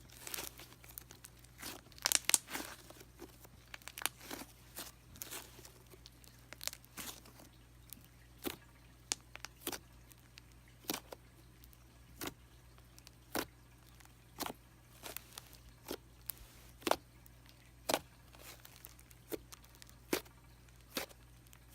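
Thick cream-cheese-textured slime being squeezed and poked by hand: a burst of crackling at first, then single sharp clicking pops about once a second.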